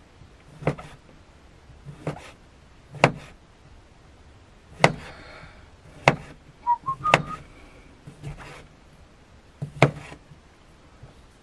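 Kitchen knife slicing white button mushrooms on a plastic cutting board: a sharp knock each time the blade cuts through to the board, about nine cuts spaced one to two seconds apart.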